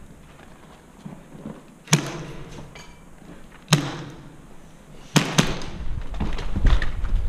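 Airsoft gunfire in a large concrete hall: four single sharp cracks that echo, spaced about two seconds apart, the last two close together. Footsteps on the rubble-strewn floor follow near the end.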